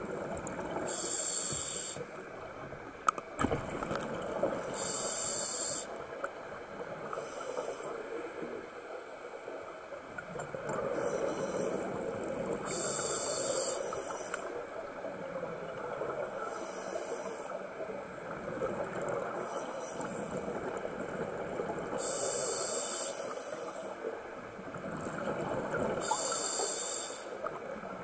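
Scuba diver breathing through a regulator, heard underwater: exhaled bubbles come in bursts of about a second, roughly every four seconds, over steady water noise. A single sharp knock about three seconds in.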